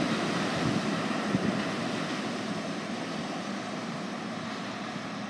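R32 subway train rumbling away down the tunnel, its noise fading steadily, with a couple of sharp knocks in the first second and a half.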